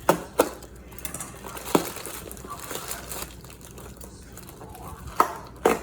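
Packaging being unwrapped by hand: crinkling and rustling of wrapping material, with a handful of sharp clicks and taps, two of them close together near the end.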